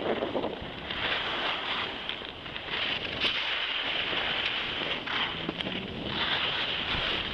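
Skis sliding over packed snow with wind rushing across the camera microphone: a steady hiss with small ripples.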